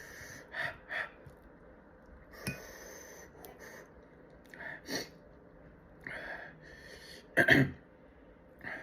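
A person eating spicy snacks, with short bursts of chewing and mouth noise mixed with breaths and sniffs, a few seconds apart; the loudest burst comes about seven and a half seconds in.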